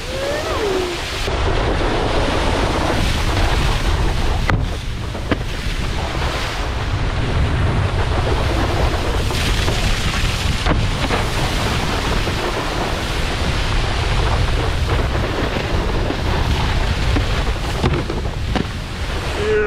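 Wind buffeting an action camera's microphone over the rushing spray of a cable-towed wakeboard on the water, with a few sharp knocks as the board hits the box and rail features.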